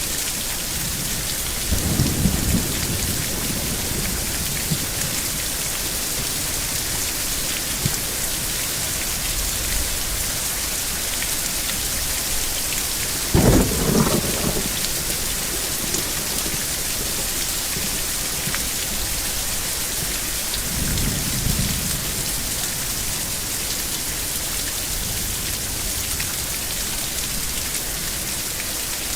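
Thunderstorm: steady rain hiss with three rolls of thunder. The first comes about two seconds in; the loudest and sharpest clap comes about halfway through; a lower rumble follows around two-thirds of the way in.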